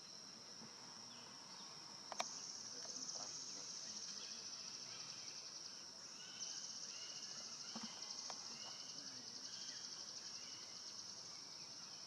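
Insects buzzing in a steady, finely pulsing high-pitched chorus that swells louder about two seconds in and again midway. A single sharp click sounds near two seconds, with faint short chirps underneath.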